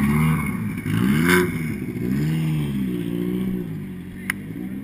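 Subaru Impreza WRX STI rallycross car's engine revving up and dropping back about once a second as it pulls away, growing fainter. A single sharp click about four seconds in.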